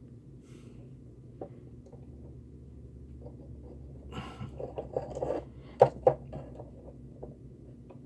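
Hands working wires and a soldering iron inside an opened filament dryer's housing: light scraping and rustling about halfway through, then two sharp knocks close together, over a low steady hum.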